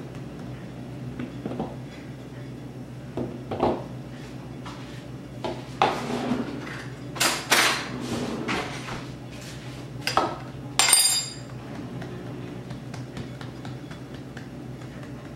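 Scattered knocks and clatters of utensils and a rolling pin being handled and set down on a granite countertop while biscuit dough is pressed flat by hand. The loudest is a short ringing metallic clatter about eleven seconds in, a metal spoon laid down on the stone.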